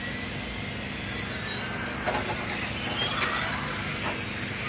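Electric radio-controlled touring cars with brushed motors running on the track, their high motor whine rising and falling as they accelerate and brake, with a few light knocks.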